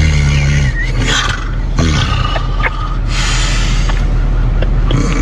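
A person snoring very loudly with rough, rasping breaths and snorts. A buzzing, pitched snore opens the stretch, a couple of short squeaky rises follow, and a long rasping breath comes near the end.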